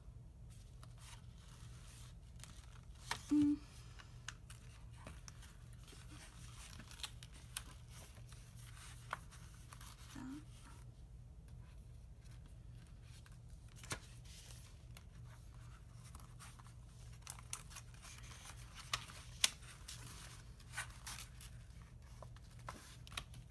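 Paper notebook inserts being handled and fitted under a traveler's notebook's elastic bands: faint, scattered rustles, taps and clicks of paper and card.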